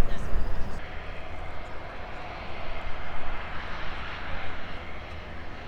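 Jet engine noise from a departing US Air Force fighter: a continuous rushing noise, its highest tones falling away about a second in.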